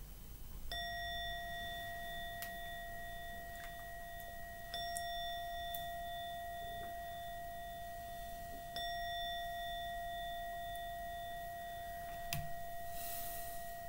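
A meditation bell struck three times, about four seconds apart, each stroke ringing on in a long, steady tone that is still sounding when the next one is struck.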